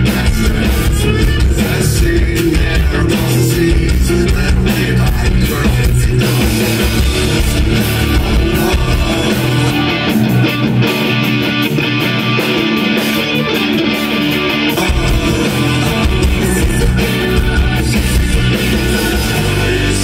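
Rock band playing live through a stage PA: electric guitars, bass guitar and drum kit. The deep bass drops out for a few seconds midway, then comes back in.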